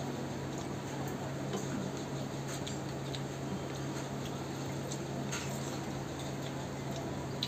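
Wet eating sounds: fingers squishing rice mixed with onion dal on a plate, and chewing, with a few faint soft clicks over a steady low hum.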